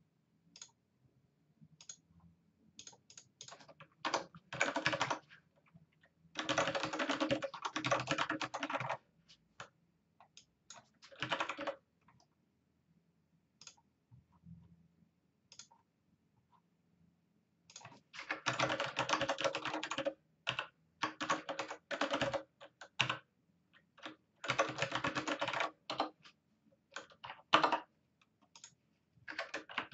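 Typing on a computer keyboard: three long quick runs of keystrokes, about 6, 18 and 24 seconds in, with shorter runs and scattered single clicks between them.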